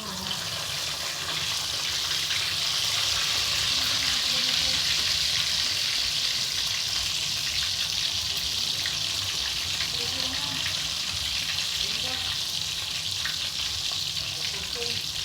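Chicken and mushrooms in gravy sizzling in a pan over the heat, a steady hiss that grows a little louder in the first couple of seconds.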